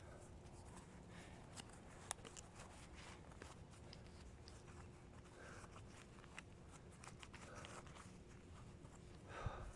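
Near silence with a faint steady hum and scattered faint clicks and rustles. There is a sharper click about two seconds in and a brief rustle near the end.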